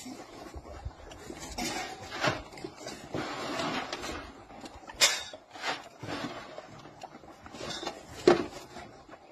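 Scattered knocks and clatter, with a stretch of rustling shuffle, as a group of beagles moves about a concrete kennel run. The sharpest knocks come about five and eight seconds in.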